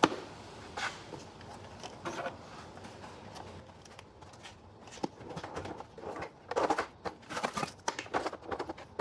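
Hand tools and shop items being handled and put away: scattered knocks and clatters, sparse at first and more frequent in the second half.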